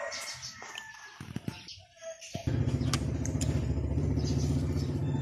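Birds chirping with a few light clatters, then about two and a half seconds in a nearby motorcycle engine comes in suddenly and runs as a steady low rumble.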